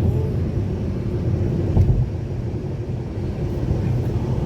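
Steady low rumble of road noise inside a moving car, with a single thump about two seconds in.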